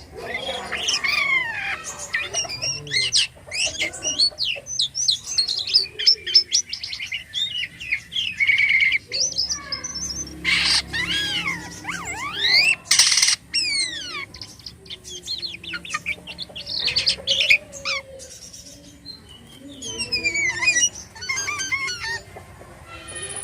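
Jalak kapas starling singing a fast, varied song of chirps, sweeping whistles and harsh rasping notes, packed with mimicked phrases of other birds ('isian').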